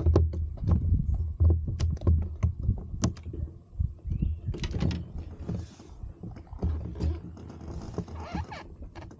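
Rapid light clicks and knocks of fishing gear being handled aboard a kayak, over a low rumble, with two brief hissing rushes, about halfway through and near the end.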